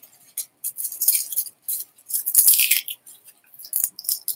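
Plastic cling wrap crinkling and tearing in irregular crackly rustles as it is pulled by hand off a small bottle.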